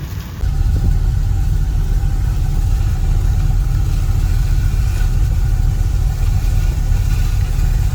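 John Deere 4400 combine running steadily with a low rumble and a steady hum. It gets suddenly louder about half a second in.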